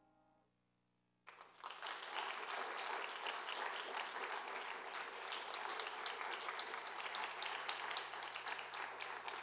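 The last grand piano chord dies away into near silence, and about a second in an audience breaks into steady applause.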